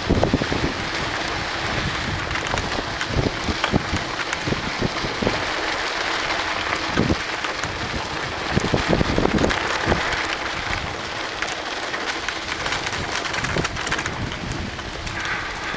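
Mountain bike riding down a dusty dirt trail: tyres crunching over the dirt and wind rushing over the microphone, with irregular low knocks and rattles as the bike goes over bumps.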